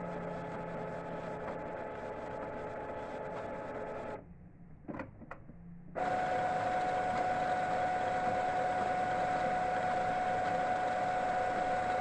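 Epson M2140 printer running its first-time initialization cycle: a steady motor whine with a fixed tone. About four seconds in it drops away for about two seconds, with a few light clicks. It then comes back louder, with a higher steady tone.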